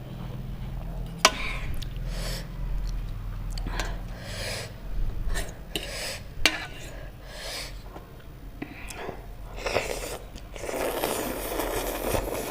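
Close-miked eating sounds of spicy noodles and chatpatey: chewing and mouth noises, with a sharp utensil click against the bowl about a second in and another around six seconds in. A longer, denser stretch of eating noise comes near the end.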